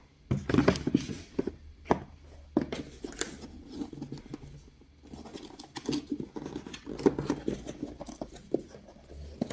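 Cardboard packaging handled by hand: a box and its insert shifted, scraped and knocked in a run of irregular clicks and rubbing.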